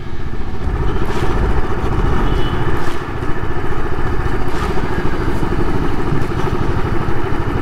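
Motorcycle engine running steadily as the bike is ridden along.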